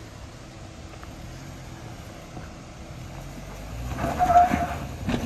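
Suzuki JB74 Jimny's 1.5-litre four-cylinder petrol engine running at low speed on an off-road climb. It gets louder about four seconds in, with a brief high note.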